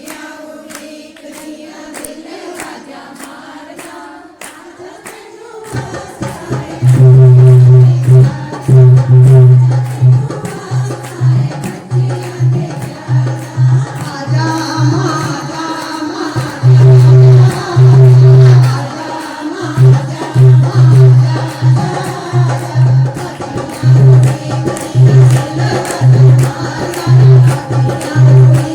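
Devotional song with singing over a hand drum that comes in about six seconds in and keeps a steady beat, with regular sharp claps or percussion ticks throughout.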